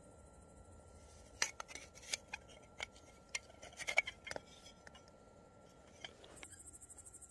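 Irregular sharp clicks and light clinks of hard objects being handled, about a dozen over some three seconds. Crickets chirping in a fast pulsing rhythm come in near the end.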